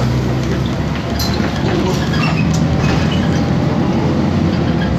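Inside a BMC Belde city bus on the move: its Cummins ISBe 6.7 inline-six diesel runs with a steady low drone, with road noise and a few short rattles from loose interior parts.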